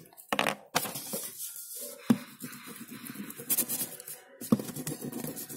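Rustling and scattered knocks and clicks of hands working with paper and a glue stick close to the microphone.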